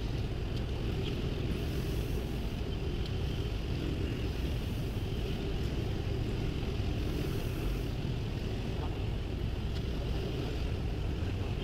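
Steady rushing noise of a motorcycle ride in slow city traffic: engine, traffic and wind on the microphone blended into an even rumble, with no single event standing out.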